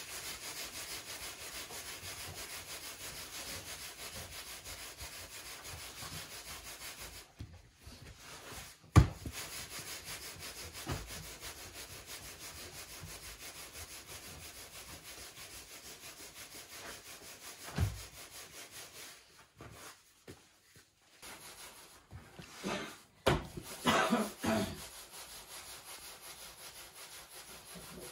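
Hands pressing and rubbing rounds of bread dough on a floured wooden board: a steady, quickly repeating rubbing, with a sharp knock on the board about nine seconds in and a few more knocks near the end.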